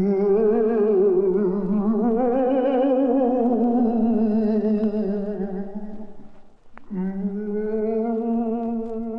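A ghostly 'oooo' moan, one long wavering note that swells a little in pitch and then dies away. After a short break and a click, a second held, wavering moan begins.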